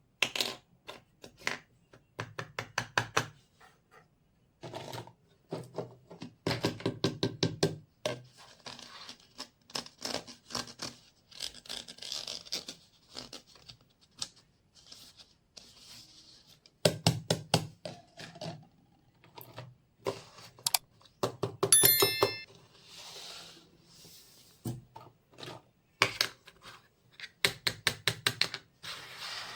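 Small plastic pieces of a miniature toy kitchen set being handled: quick runs of light clicks and taps, with stretches of soft rustling and scraping in between.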